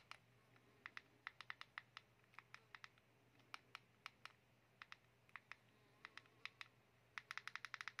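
Keys of an E-Tachi B13 keypad mobile phone being pressed: quiet, irregular clicks, with a quick run of about ten presses near the end.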